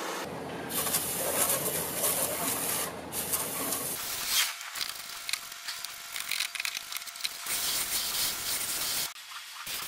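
Spraying hiss of foam and water against a car's wheel and wheel arch, from a hand-pumped pressure sprayer and a hose nozzle. It comes in several stretches with short breaks.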